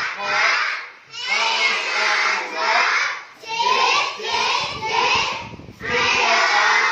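A class of young children chanting together in unison, in regular rhythmic phrases about once a second.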